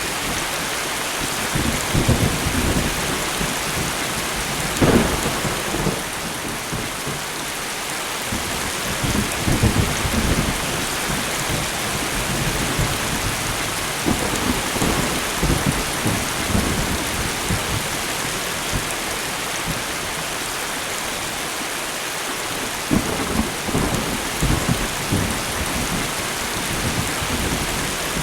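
Steady light rain hissing, with thunder rumbling in low surges several times, loudest about five seconds in and again around ten and twenty-three seconds in.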